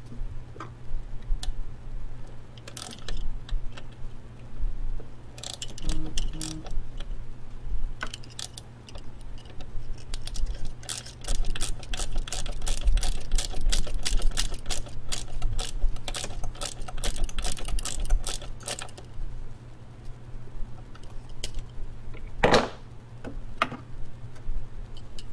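Hand ratchet clicking rapidly as a nut is run down on a wiring post, with scattered clicks and handling knocks of tools and parts, and one louder knock near the end.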